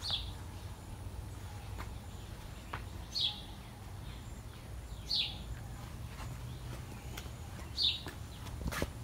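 A bird repeating one short, falling chirp four times, two to three seconds apart.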